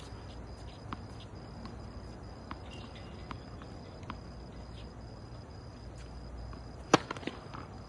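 A tennis ball bounced on a hard court before a serve, a light tap about every 0.8 s, then a sharp crack as the racket strikes the ball on the serve about seven seconds in, followed by a few lighter knocks.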